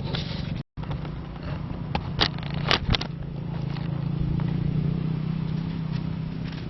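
An engine running with a steady low hum that swells about four to five seconds in, with a few sharp clicks in the first three seconds.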